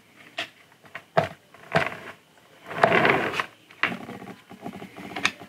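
Hard model-kit parts being handled and test-fitted onto a sculpture: a few light clicks and taps, with a longer, louder noise about three seconds in.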